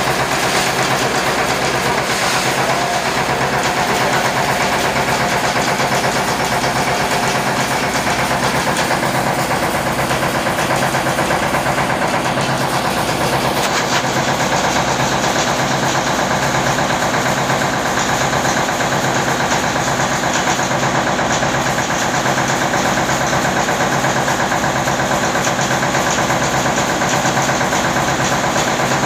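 Rice mill running steadily: a Yanmar TF 300 single-cylinder diesel engine driving a YMM 20 rice milling machine and its grain elevator, a loud, even engine drone with mechanical clatter from the mill.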